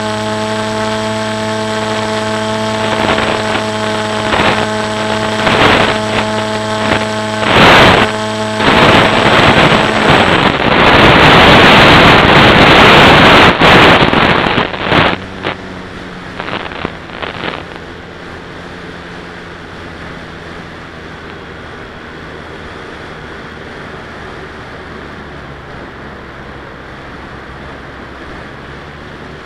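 Electric motor and propeller of a FliteTest Blunt Nose Versa wing in flight, heard from its onboard camera: a steady whine with several pitched tones, broken by gusty buffets of wind on the microphone. About ten seconds in the motor note drops out and a loud rush of wind takes over for several seconds as the wing dives. From about fifteen seconds on, a quieter, lower motor note runs under steady wind.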